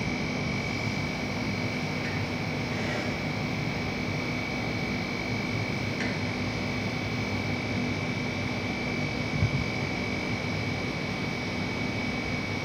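Steady room hum and hiss with a thin high whine, like an air conditioner or fan running, and one brief low thump about nine and a half seconds in.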